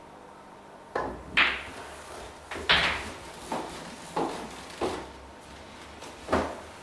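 Pool shot on a coin-op-style home table: the cue tip strikes the cue ball, then balls clack together and knock off the cushions, about seven sharp knocks over several seconds, the loudest about three seconds in, with one ball going into a pocket.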